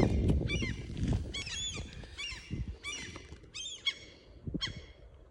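A bird calling over and over, short pitched calls roughly once or twice a second, growing fainter toward the end, over a low rumble near the start.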